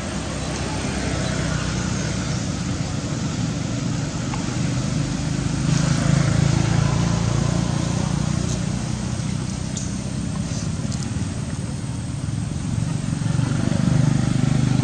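Steady low engine rumble, like motor vehicles running nearby, that swells about six seconds in and again near the end, with a few faint clicks.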